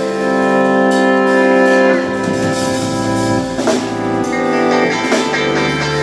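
Music with long held chords that change about every two seconds.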